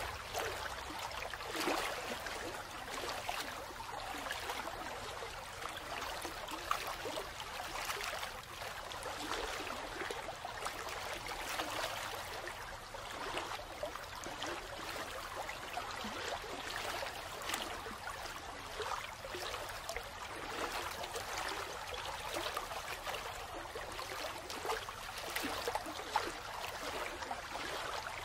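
Steady running-water sound, a continuous trickling and rushing with small irregular splashes.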